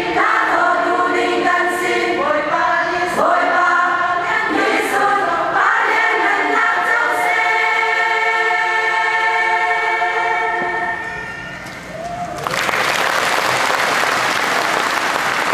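Women's choir singing, ending on a long held chord that fades out about eleven and a half seconds in. The audience then breaks into steady applause.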